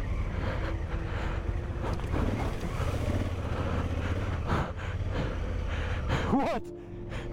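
Adventure motorcycle engine running steadily at low speed on a dirt track, with wind buffeting the microphone.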